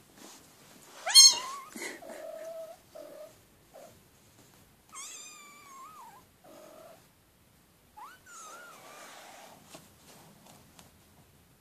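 Kittens mewing repeatedly. A loud, high mew rises in pitch about a second in. Shorter, lower calls follow, with two more high mews at about five and eight seconds.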